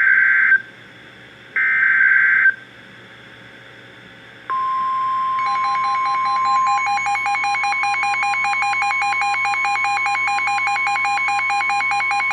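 NOAA Weather Radio Emergency Alert System activation. The last two short, raspy bursts of the SAME digital header come first. About four and a half seconds in, the steady 1050 Hz warning alarm tone starts. A second later, rapid pulsing beeps join the tone and keep going with it.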